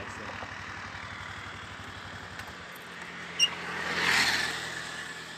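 Road traffic passing on a highway bridge: one vehicle's engine fades away, then another vehicle rushes past about four seconds in, swelling and fading. A single short, sharp high chirp sounds just before it.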